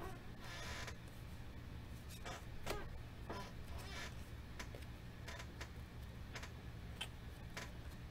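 Panini football trading cards being flicked off a stack one by one, each giving a short snap or click at irregular intervals, with a short swish of card sliding on card about half a second in. A steady low hum runs underneath.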